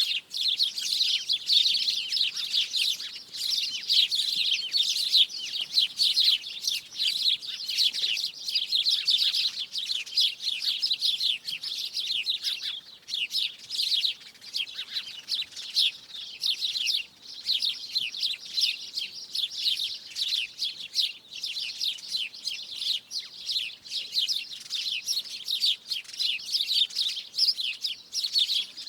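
A flock of small birds chirping and twittering together in a tree: a dense, continuous chatter of many short, high chirps overlapping one another.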